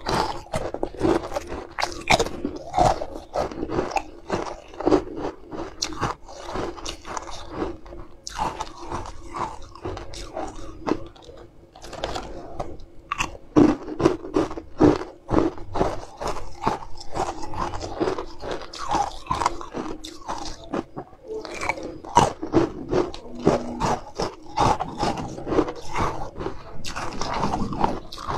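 Someone bites and chews hard frozen green ice pieces, making dense, irregular crunching and crackling. There is a short quieter lull about midway.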